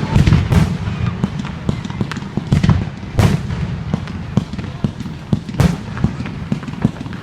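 Fireworks going off: a rapid run of bangs and crackles, with a few louder booms spaced a few seconds apart, over a continuous low rumble.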